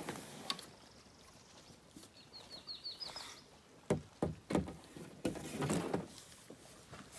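Paddles and gear knocking against the hull of an Old Town Pack Canoe as it is readied for a portage: a cluster of sharp knocks about four seconds in, then more knocking and rustling. A small bird sings a quick run of about seven high chirps a little earlier.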